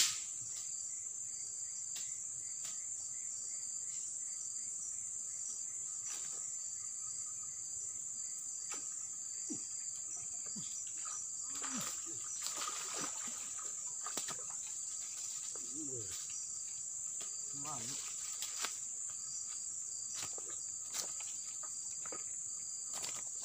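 Steady high-pitched buzz of insects throughout. About halfway through, a hooked snakehead splashes and thrashes at the surface for several seconds while being fought on a rod, mixed with a few clicks and rustles.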